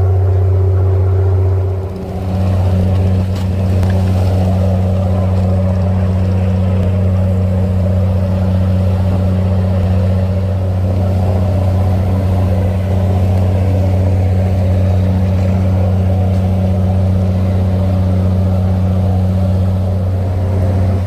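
Boat engine running with a steady low hum, dipping briefly about two seconds in.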